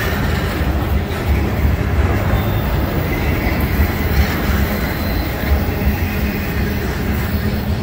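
Intermodal freight train cars rolling past: trailer-on-flatcars and double-stack container well cars, their steel wheels on the rails making a steady, continuous low rumble.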